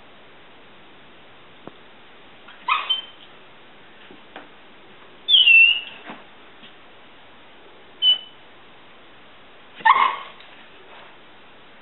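Poodle giving short, high-pitched, bird-like whining squeaks four times, the loudest one falling in pitch. It is the dog's excited signal that it is watching for squirrels.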